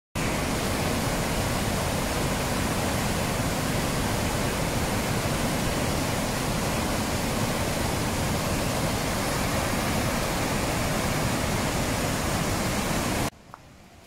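Falls of Clyde waterfall on the River Clyde in spate after heavy rain: a steady, loud rush of white water. It cuts off abruptly near the end.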